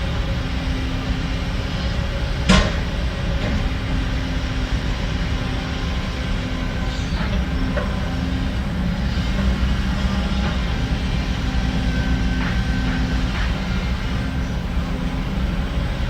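Heavy diesel construction machinery running steadily, with a sharp metal clank about two and a half seconds in and a few fainter clanks later.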